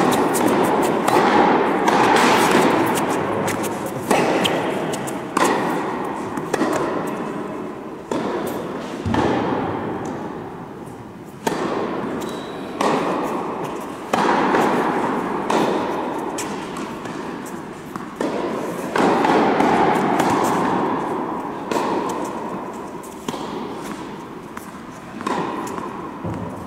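Tennis balls being struck and bouncing in a large indoor tennis hall. Each sharp knock trails off in a long echo, and the knocks come every one to three seconds.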